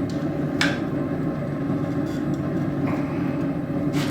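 Steady roar of a running forge, with one sharp hammer tap on the hot steel about half a second in.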